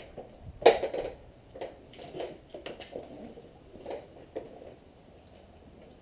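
A few irregular knocks and rattles from handling a 1971 Tunturi Maxi moped while its engine is not running. The loudest is a clunk about a second in, and the last second and a half is quiet.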